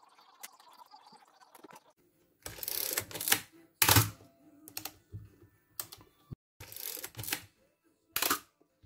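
Pentax 67II camera body being handled and worked on the bench: several separate bursts of mechanical clacking and rattling, each up to about a second long, the loudest and deepest about four seconds in.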